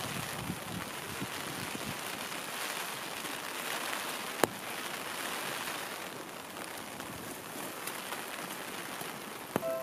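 Steady hiss of heavy rain falling, with a single sharp tap about halfway through and two more just before the end.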